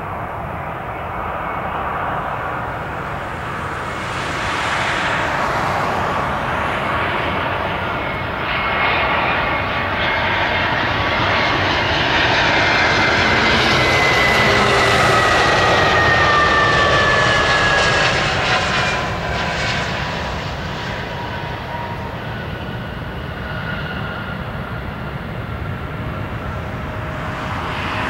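An Airbus A320's twin IAE V2500 turbofans on landing approach, growing louder as the jet comes close. A high engine whine falls in pitch as it passes by, then the sound eases to a steady rumble as it goes away down the runway.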